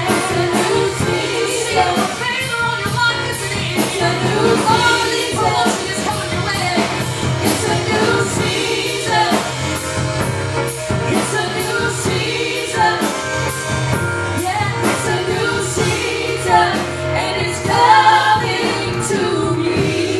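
Gospel worship music: voices singing over a band with bass and drums.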